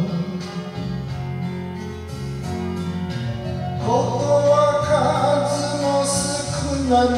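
Enka karaoke: a backing track playing through the room's speakers while a man sings into a microphone. The music grows louder and fuller about four seconds in.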